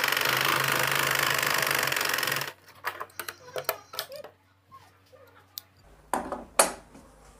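Singer sewing machine running steadily as it stitches a strip of cotton fabric, stopping abruptly about two and a half seconds in. After that come scattered clicks and rustles as the fabric is handled, with a couple of short louder sounds near the end.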